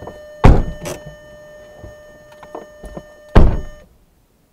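Car doors thumping shut, a loud thud about half a second in and another near the end, with a smaller knock between. Over them a steady electronic warning tone from the car sounds and stops suddenly just after the second thud.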